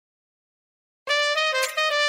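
Silence for about a second, then music starts suddenly with a bright brass line holding one note, broken briefly once.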